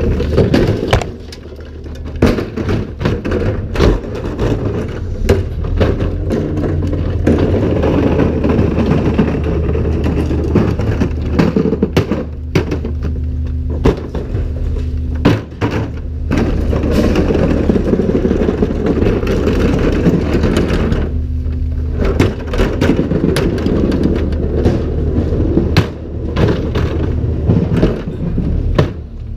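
Garbage truck's engine and hydraulics running steadily while wheeled recycling and organics carts are tipped into its hopper by the lifters: repeated bangs of carts against the tipper arms and clattering, cracking refuse dropping in.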